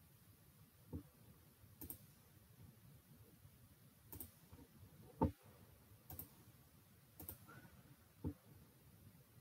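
Computer mouse clicks: about seven single, widely spaced clicks, the one a little past the middle louder than the rest.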